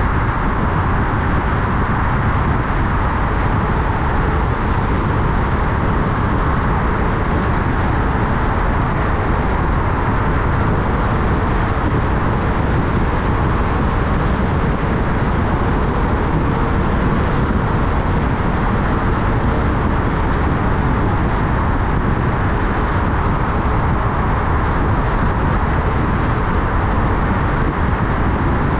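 Steady road noise of a car being driven: even tyre and engine hum with no sudden events.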